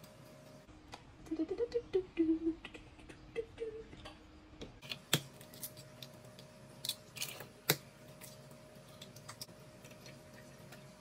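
Eggs being cracked on the rim of a blender cup: a few sharp taps of shell against the rim, with the crackle of the shells being pulled apart, among light kitchen handling clicks. A few short low notes sound in the first half.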